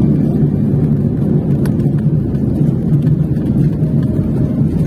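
Steady low rumble of a Boeing airliner heard from inside the cabin as it rolls along the runway after landing.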